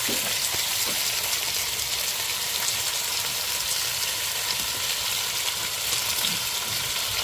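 Sausages frying in hot oil in a pan: a steady sizzle with dense crackling.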